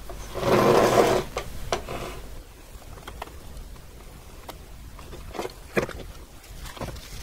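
Handling noise from a small metal tape drive mechanism being worked on with a screwdriver: a loud scrape and rustle about half a second in, lasting about a second, then scattered light clicks and knocks of the screwdriver and metal parts.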